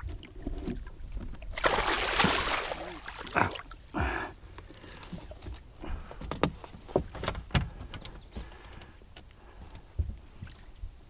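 A large northern pike splashing in a landing net held in the water beside a boat, loudest about two seconds in, followed by scattered knocks and clicks of handling against the boat.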